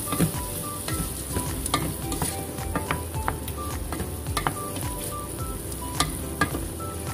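Shrimp, onion and tomato sizzling in a stainless steel pot as they are stirred with a wooden spatula, with scattered clacks of the spatula against the pot. A simple background melody plays.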